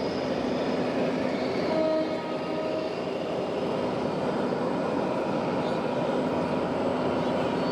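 A horn sounds once for about a second, roughly two seconds in, over a steady, dense background of running model vehicles and hall noise.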